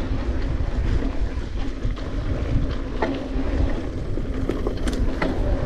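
Wind rushing over the camera microphone as a mountain bike rides fast over a dirt trail's rollers and jumps, with a steady rumble of tyres on dirt and a few sharp clicks and rattles from the bike.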